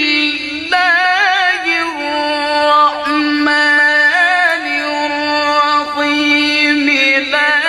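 A male qari chanting in Arabic: one long, high, held phrase with ornamental trills, the pitch stepping down partway through.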